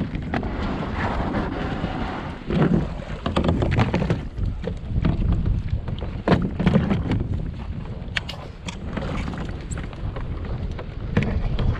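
Wind buffeting the microphone of a camera mounted on a kayak, a steady low rumble, with scattered knocks and clicks.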